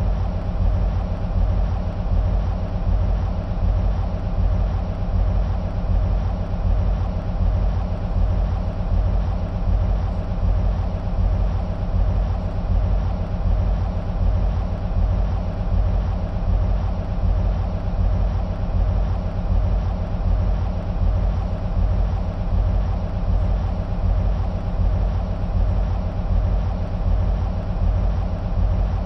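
EMD SW1500 switcher locomotives' 12-cylinder two-stroke diesel engines idling: a steady deep rumble with a fast, even pulse.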